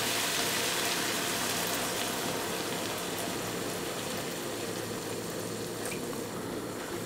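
About a cup of water poured into a hot pan of shrimp frying in spice masala, giving a steady pouring hiss and sizzle that grows gradually quieter.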